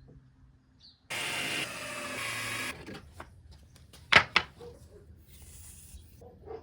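Cordless drill-driver running for about a second and a half as it drives a screw into pallet wood, then two sharp knocks of wood a few seconds in.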